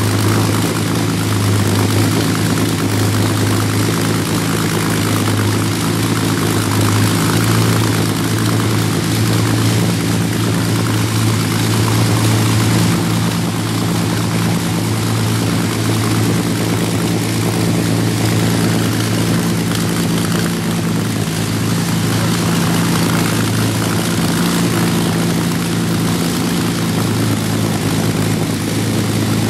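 Rolls-Royce Merlin Mark III supercharged V12 aero engine running steadily on a test stand, a loud, even drone throughout. It is running without exhaust stubs fitted, so the exhaust comes straight out of the open ports.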